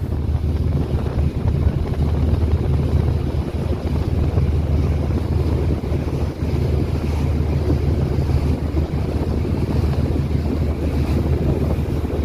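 Ro-ro ferry's engines running with a steady low rumble, mixed with wind buffeting the microphone and the sea washing past the hull.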